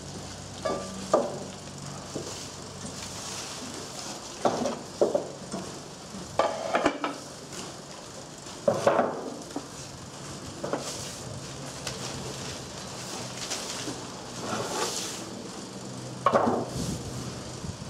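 Irregular metal knocks, clatter and scraping from a lever-operated clay roof-tile press as tiles are formed and handled on its curved mold, over a steady low hum.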